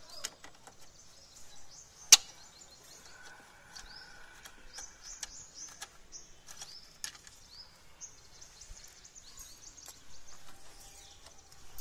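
Screwdriver working the metal screws of a motorcycle's side panel: small metallic clicks and scrapes, with one sharp click about two seconds in. Small birds chirp repeatedly in the background.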